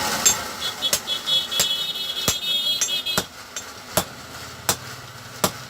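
Hammer blows on metal, about nine strikes at a steady pace of roughly one every two-thirds of a second. A high metallic ring sounds through the first half and stops about three seconds in.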